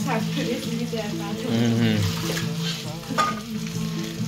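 Tap water running and splashing while handfuls of fresh garden cress greens are rinsed and handled in a steel sink. A tune with steady notes changing step by step plays underneath.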